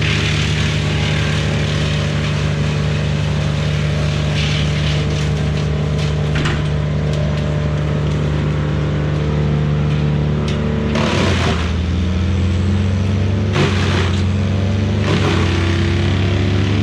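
Vehicle engine running steadily under way. About eleven seconds in its engine speed drops to a lower note, and a few short bursts of hiss follow.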